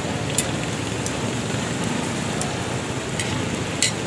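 Parathas frying on a large oiled flat iron griddle with a steady sizzle, broken by a few sharp clicks of metal tongs as they are turned.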